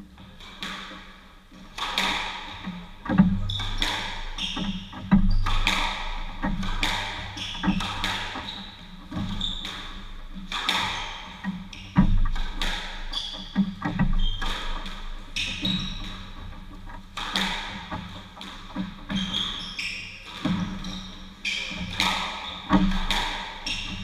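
Squash rally: the ball cracks off the rackets and the court walls about once a second, each hit ringing in the enclosed court, with short squeaks of court shoes on the wooden floor between the hits.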